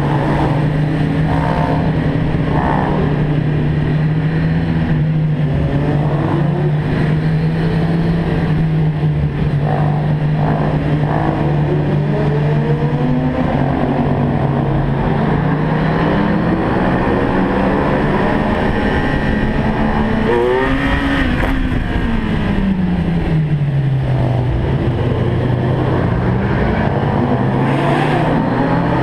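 Car engine and exhaust running at a steady pitch in a road tunnel, the note dipping and then climbing again in the last third as the revs change, with other vehicles' engines sliding past.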